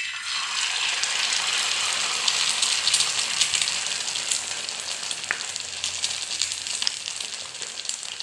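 Beaten egg with onion and green chilli frying in hot oil in a pan: a loud, steady sizzle with fine crackling, starting abruptly as the egg hits the oil and easing a little toward the end.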